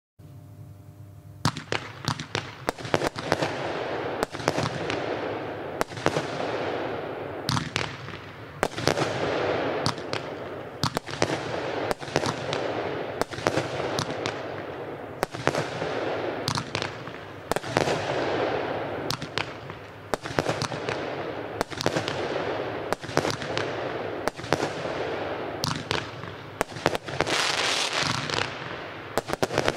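Weco 'Raptor' 22-shot 25 mm firework battery firing, a sharp shot about once a second from about a second and a half in, with a rush of noise from the bursting gold glitter stars between the shots.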